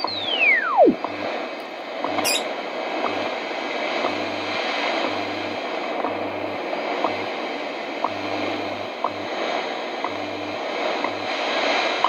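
Shortwave reception of the CHU Canada time signal on a Realistic DX-60 receiver between voice announcements: steady static hiss with faint short ticks about once a second and a low hum pulsing on and off. A whistle glides steeply down in pitch in the first second.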